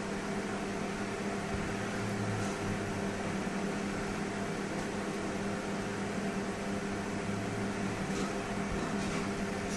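Steady electric motor hum of a running room appliance, even and unchanging, with a faint tick or two from handling.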